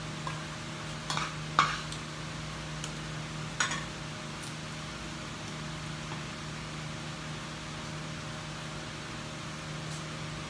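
A metal spoon clinking against ceramic bowls, a few sharp clicks in the first four seconds with the loudest about one and a half seconds in, over a steady low hum.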